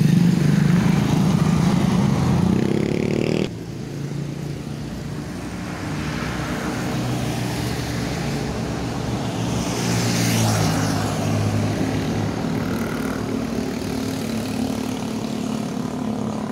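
Road vehicle engines. One speeds up with a rising pitch and is cut off abruptly about three and a half seconds in. Steady engine sound follows, with a vehicle passing about ten seconds in.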